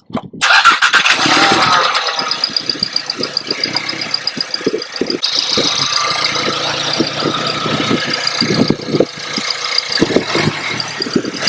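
Volkswagen Mk7 GTI's turbocharged 2.0-litre four-cylinder starting for the first time with a freshly fitted APR carbon-fibre intake and wider turbo inlet pipe, catching about half a second in, flaring briefly, then settling into a steady idle.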